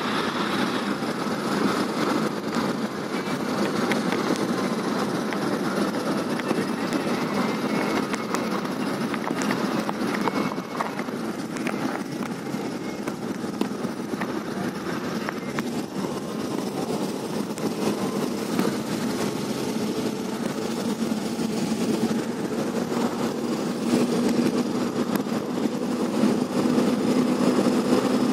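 Steady running noise of a moving vehicle, engine and rolling noise heard from inside the vehicle.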